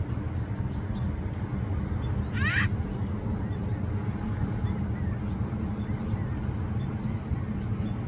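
A steady low rumble throughout. About two and a half seconds in comes one brief burst of quick rising calls from an acorn woodpecker.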